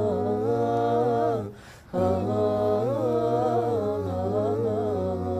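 Male nasheed group singing a cappella in layered parts: a low held bass drone under a moving melody and harmony line, with a short break for breath about one and a half seconds in. The high answering harmony is sung in falsetto.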